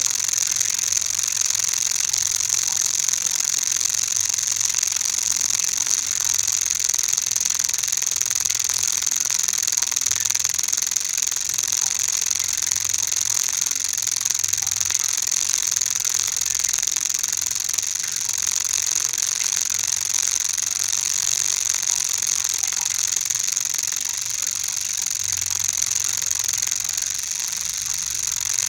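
A steady, continuous grating mechanical rattle with a strong high hiss, unbroken throughout.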